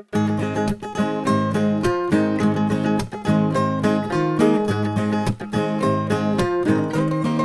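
Acoustic guitar music: strummed chords in a steady rhythm.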